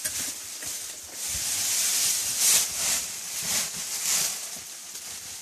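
Rustling and scuffing in several swells as someone crawls through a tight cave passage, a nylon-type jacket brushing close against the microphone.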